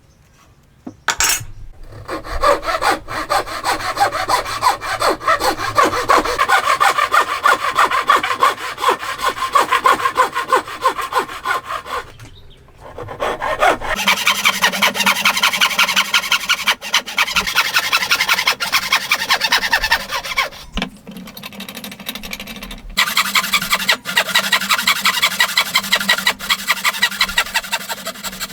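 Hand saw cutting through wood in rapid, steady back-and-forth strokes, in three long runs broken by two short pauses.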